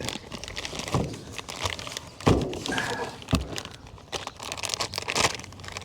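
Plastic bags crinkling and rustling as new brake rotors are handled and unwrapped, with two dull thumps a second apart near the middle.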